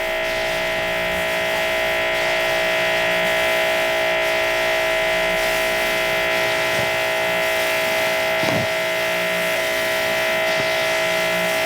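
Electric pressure washer running steadily with a surface cleaner attached: a constant whine from the motor and pump over the hiss of the spray.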